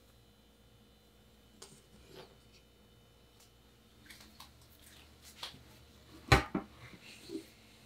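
Scattered light taps and clicks, then about six seconds in one sharp metallic clank as an aluminium tube pan holding a baked chiffon cake is set down on a wire cooling rack. A few softer knocks follow.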